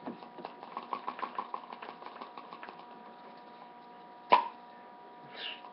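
Vinyl bobblehead figure's head wobbling on its spring, giving a run of light rapid clicks that fade out over about three seconds, followed by a single sharp knock.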